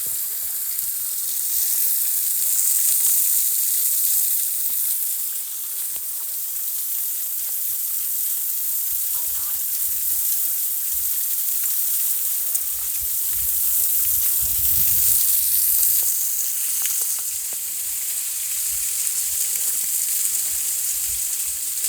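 Small waterfall pouring and splashing steadily, a continuous high hiss of falling water. A brief low rumble rises about two-thirds of the way through.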